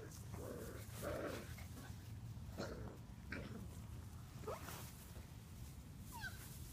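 Six-week-old Labrador retriever puppies giving short, faint yips and whines as they play, several brief calls spread out, the last a falling whine near the end, over a low steady rumble.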